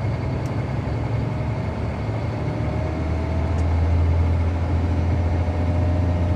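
Excavator's diesel engine running steadily, its low drone growing louder about three seconds in as it takes on more load.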